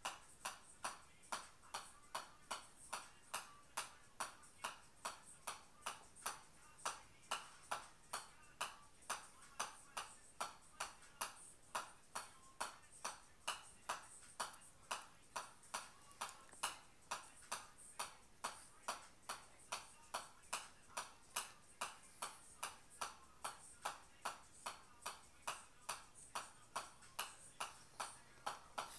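A golf ball being juggled on the face of a pitching wedge, giving a steady run of sharp, even clicks, a little over two taps a second.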